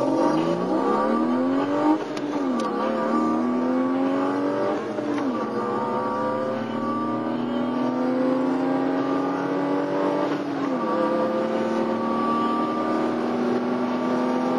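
A 1992 BMW 325iS's 2.5-litre straight-six, heard from inside the cabin, pulling hard under full acceleration. Its note climbs steadily and drops sharply at three upshifts of the manual gearbox, about 2, 5 and 11 seconds in. Each gear lasts longer than the one before.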